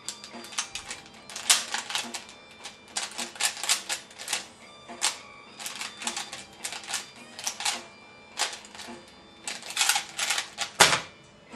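3x3 Rubik's Cube being turned rapidly by hand: irregular flurries of quick plastic clicks and clacks, with a heavier knock about a second before the end.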